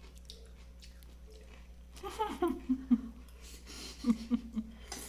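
Quiet dinner-table sounds: faint clicks of cutlery on plates, with short murmured voice sounds about two seconds in and again near the end, over a steady low hum.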